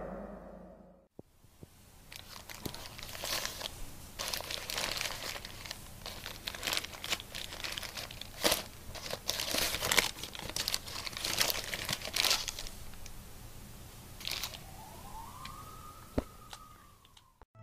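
Paper burger wrapper being unfolded and crinkled by hand, in an irregular run of crackles and rustles that dies down near the end.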